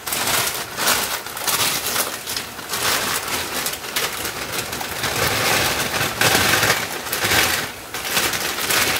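A plastic bag crinkling and rustling on and off as frozen capeletti are shaken out of it into a saucepan of water.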